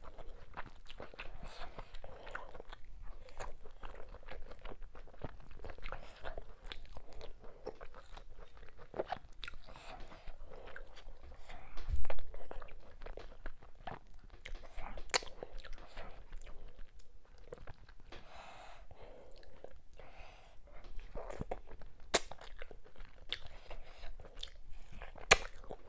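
Close-miked eating sounds: wet chewing and lip-smacking as fufu, ogbono soup and smoked fish are eaten by hand, with many sharp clicks and a louder bump about halfway through.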